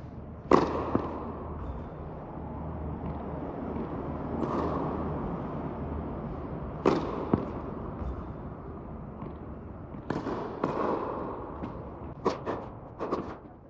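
Tennis serves: sharp racket-on-ball hits, each followed about half a second later by a second knock, three times, then a quicker run of knocks near the end, with a short echo after each hit.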